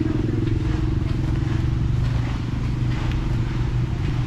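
A large racing engine idling with a rough, choppy beat.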